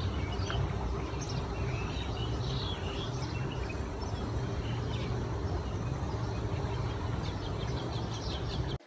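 Small birds chirping in short, scattered calls over a steady low outdoor rumble; the sound cuts off abruptly near the end.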